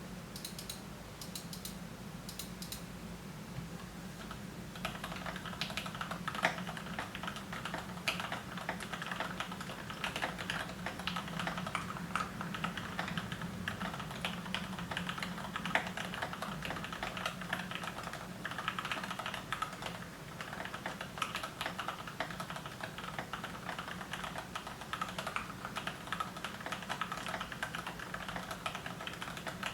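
Typing on a GMMK Pro mechanical keyboard with lubed and filmed Gateron Milky Yellow linear switches in black bottom housings, dampened by case and plate foam. A few light key taps come first, then steady, fast typing from about five seconds in, over a low steady hum.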